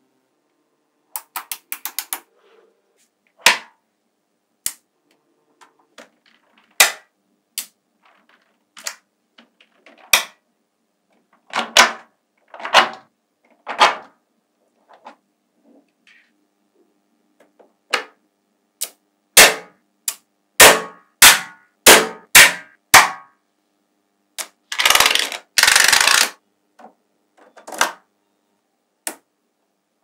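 Small magnetic balls clicking sharply as clusters and blocks of them are snapped together and set down, in irregular single clicks with quick runs of clicks about a second in and again around twenty seconds in. Near the end comes a denser rattle of many balls clacking together, lasting about a second and a half.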